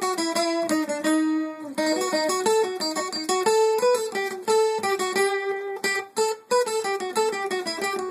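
Guitar picked in a quick single-note melody, the notes following one another several times a second.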